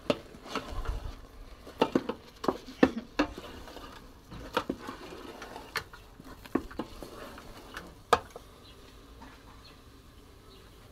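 Cooking spoon knocking and scraping against a pot as stiff ugali (maize-flour porridge) is stirred and pressed: irregular knocks, many in the first half, fewer later, with one loud knock about eight seconds in.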